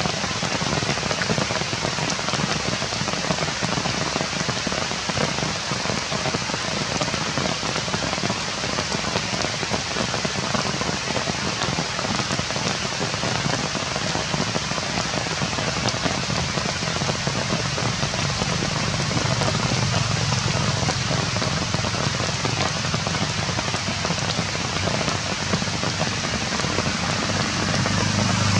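Steady rain falling on dense forest foliage, an even hiss of drops with no break.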